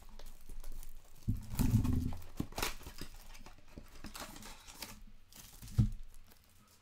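Plastic shrink-wrap torn and crinkling off a cardboard trading-card hobby box, then the box opened and the wrapped card packs handled with crackling and rustling. A sharp thump comes near the end.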